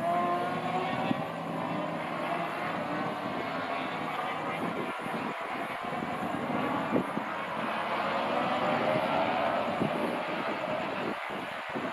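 Aircraft engine running steadily, its tones slowly gliding up and down in pitch.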